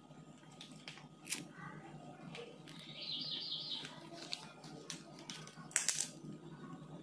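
Domestic cats chewing dry kibble, with irregular sharp crunches; a loud cluster of crunches comes near the end.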